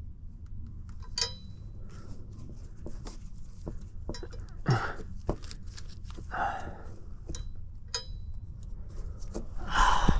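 Scattered light clicks and taps of a gloved hand working the hydraulic valve fittings of a John Deere 8335R's ILS suspension, with a man's breaths and a grunt as he works.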